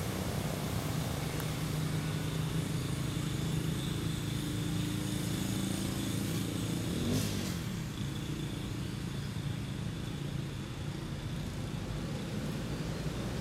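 A steady engine-like drone, with a brief rise and fall in pitch and a short sharp click about seven seconds in.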